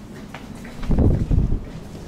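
Microphone buffeting: a loud, low rumble on the handheld camera's microphone about a second in, lasting about half a second, over quiet background.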